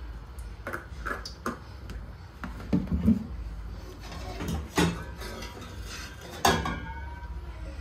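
Metal wok clanking and knocking against a gas stove's pan grate as it is handled, lifted and set back down. There are several sharp knocks, and one about six and a half seconds in leaves a brief metallic ring.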